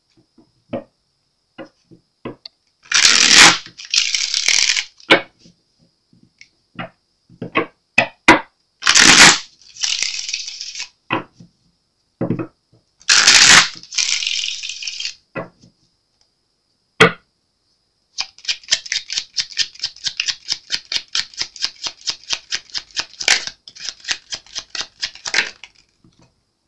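A tarot deck being shuffled by hand: a few light taps and clicks of the cards, three quick noisy shuffles each made of a short burst and a longer cascade of cards, then a long run of rapid card clicks about five a second that stops near the end.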